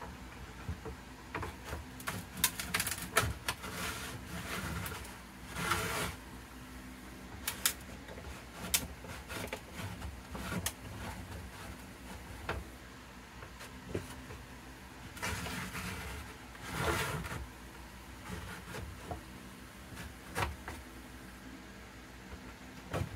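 A wooden block being slid, pressed and set down on a cedar guitar top: scattered light knocks and clicks, with two longer scraping rubs about six seconds in and near seventeen seconds. A faint steady low hum runs underneath.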